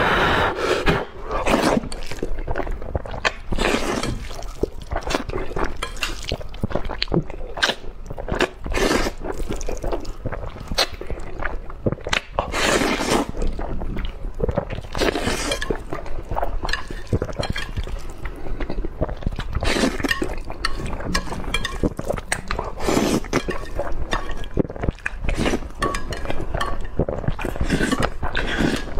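Close-miked slurping and wet chewing of spicy instant fire noodles: a dense, irregular run of wet smacks and sucking noises.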